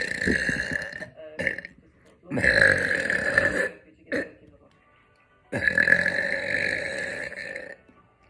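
A woman burping loudly: three long, drawn-out burps, the first ending about a second in, the second around the third second, and the third from about five and a half seconds to near the end, with short gulping sounds between them.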